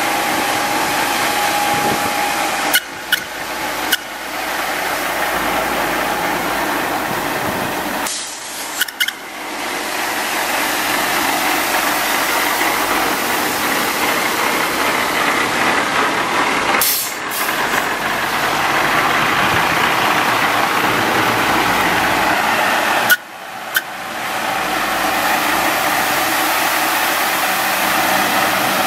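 2000 International 4900 water truck with its engine running while water jets from its spray heads onto gravel: a steady rushing hiss of spray over the engine, broken a few times by short dips.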